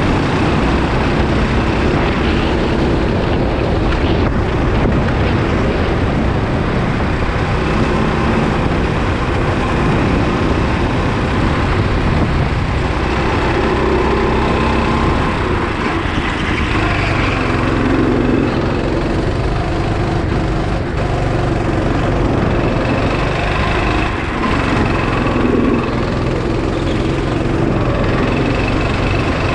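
Go-kart engine running at speed, heard from on board the kart over a heavy low rumble. Its pitch rises and falls with the throttle through the corners.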